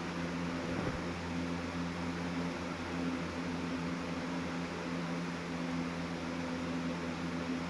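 Box fan running steadily: an even rush of moving air with a steady low hum underneath.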